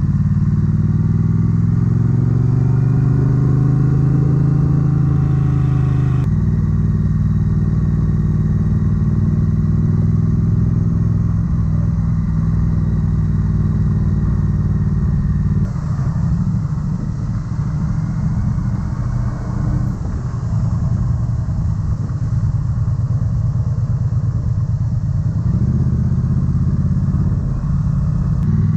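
Triumph Street Twin motorcycle's parallel-twin engine running under way, rising in pitch over the first few seconds. The sound changes abruptly about six seconds in and again about halfway, becoming rougher and more pulsing before it steadies near the end.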